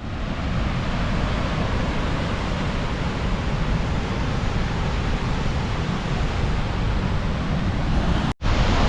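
Sissu waterfall's water rushing in a steady roar, with wind buffeting the microphone. The sound cuts out for an instant near the end and comes straight back.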